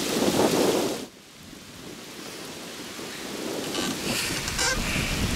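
Rustling, wind-like handling noise on the camera's microphone as the camera is moved around. It is loud for about the first second, stops suddenly, then comes back softer and slowly grows.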